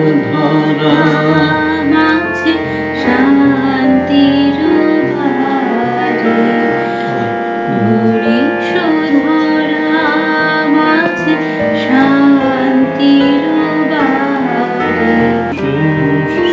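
A woman sings a melody over sustained chords played on a Casio electronic keyboard set to its harmonium voice.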